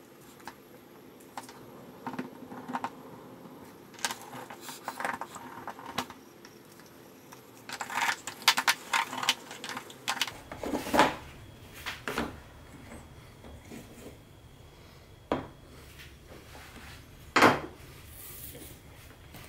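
Irregular clinking, tapping and knocking of small hard objects, like tools being picked up and set down on a work surface, busiest in the middle stretch.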